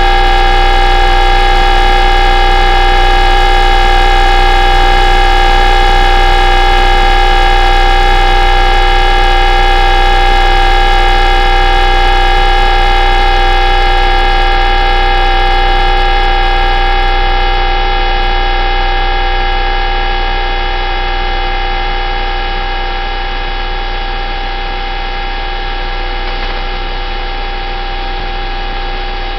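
Steady, unbroken humming drone from the UVB-76 shortwave station ("The Buzzer"), heard over a radio receiver as one pitch with many overtones. It grows a little quieter about two-thirds of the way through.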